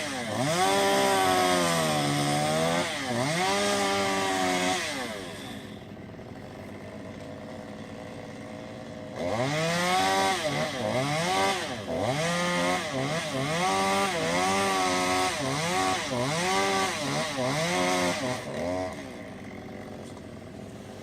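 Chainsaw engine revving up and down again and again. Several seconds in, it drops back to a low idle, then revs again in quicker, shorter pulls, about one a second, before settling to idle near the end.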